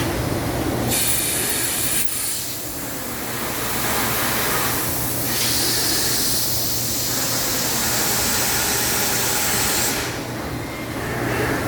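Factory machine noise from a robotic nailing and drilling system working on wooden truck beds: a steady hum under long stretches of hiss, with one sharp click about two seconds in.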